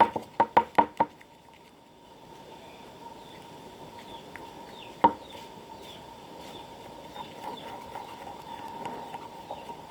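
About five quick sharp taps in the first second and one more about five seconds in, with faint short bird chirps in the background.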